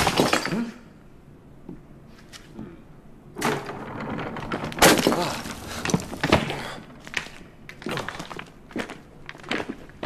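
Scattered knocks and thuds with gritty scraping and cracking noises, the sound of a stone statue moving, louder from about a third of the way in.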